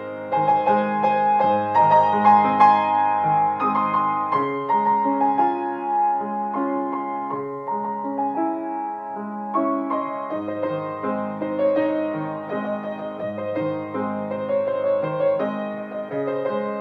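Background piano music: a gentle, repeating keyboard piece.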